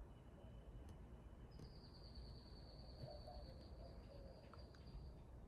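Near silence: faint room tone, with a faint steady high whine from about a second and a half in until near the end, and a few faint ticks.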